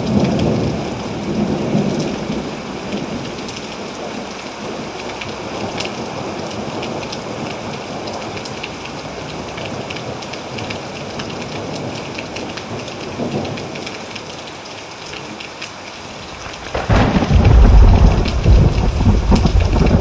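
Steady tropical rain pattering, with thunder: a rumble dies away over the first couple of seconds, and a loud clap of thunder breaks in about seventeen seconds in and keeps rumbling.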